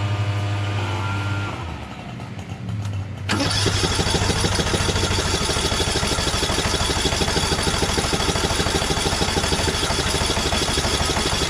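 Electric starter cranking the Craftsman LT1000 lawn tractor's rebuilt Kohler Command engine, with a short pause, then the engine catches suddenly a little over three seconds in and keeps running at a fast, even beat.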